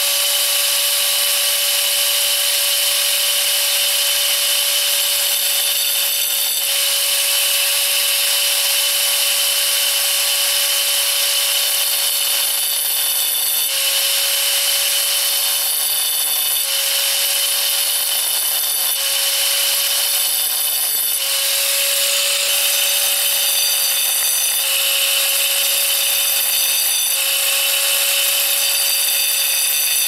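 Angle grinder with a diamond-coated cutting disc running steadily, a whine over a rushing hiss, as it cuts shallow grooves into a tile. Its note shifts slightly every two or three seconds as the disc bites into each groove.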